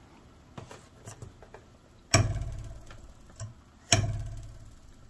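A metal ruler held over a desk edge is twanged twice, about two seconds apart: each pluck starts sharply and leaves a low buzzing vibration that dies away over about a second and a half. The length of ruler hanging over the edge sets the pitch of the vibration. A few light clicks come before the first twang.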